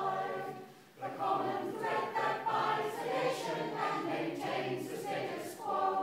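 A choir singing a song, many voices together. The singing drops off briefly about a second in, then the next phrase begins.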